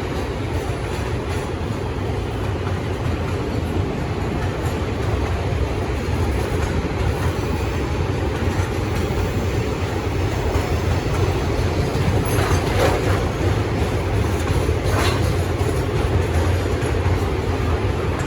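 Freight train hauled by diesel locomotives rolling past, a steady heavy rumble of engines and wagons on the track, with a couple of sharper clanks about two-thirds of the way through.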